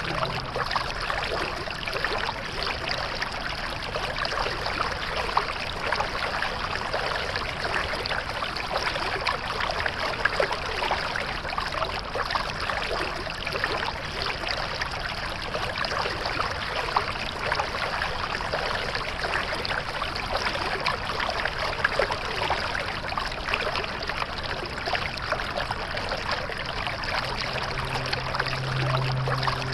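Water flowing steadily in a stream, an even rushing babble with small irregular splashes.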